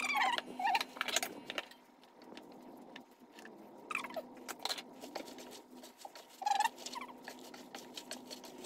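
Gloved hands tossing noodles and seafood in a cooking pot: soft rustling and many small clicks, with a few short high squeaks in the first second or so and again about four and six and a half seconds in.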